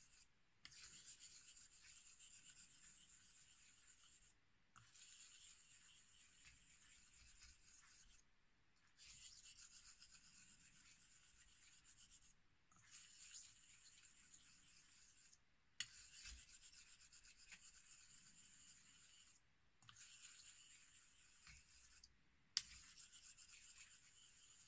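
Straight razor blade rubbed in small circles on a whetstone during bevel setting: a faint scratchy hiss in runs of a few seconds, broken by short pauses, with two light clicks.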